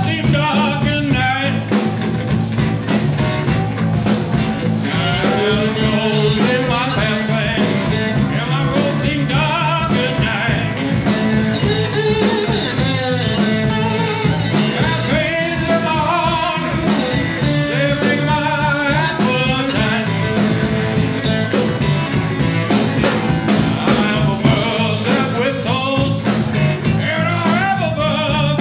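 Live blues band playing: electric slide guitar with gliding, wavering notes over electric bass and a steady drum beat.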